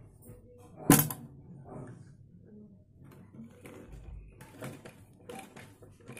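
Domestic sewing machine stitching a placket seam in short, uneven runs of clicking and rattling. There is one sharp, loud knock about a second in.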